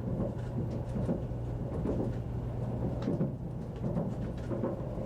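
Interior running noise of a 100-series Shinkansen car under way: a steady low hum over a rumble, with irregular knocks from the running gear on the track.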